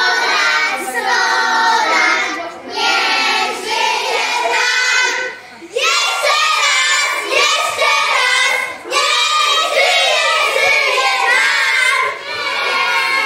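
A group of young children singing together, in phrases with short pauses between.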